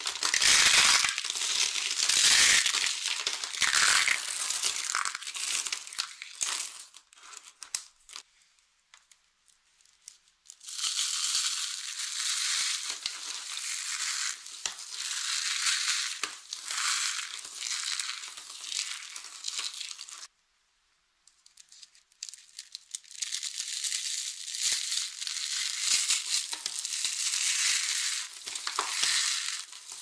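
Dry soap curls crackling and snapping as they are crushed in the hands, then a softer, steady crunching as fine dry soap shavings are squeezed and rubbed between the fingers, with brief pauses between handfuls.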